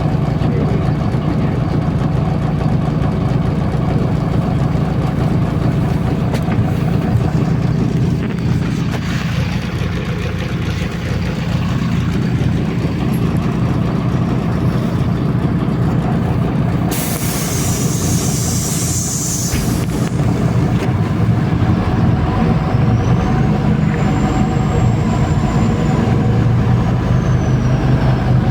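Interior of a MAZ-203 city bus on the move, its engine running with a steady low hum. About two thirds of the way through comes a sudden hiss of compressed air lasting about three seconds, and a faint high squeal rises and falls near the end.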